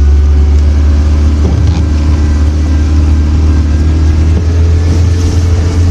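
Truck engine running at a steady low drone, heard from inside the cab while the truck drives a rough trail.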